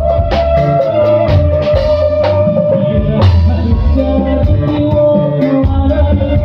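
Live band of drum kit, electric guitar and keyboards playing a dangdut song: a held melody line over a steady beat, with no singing.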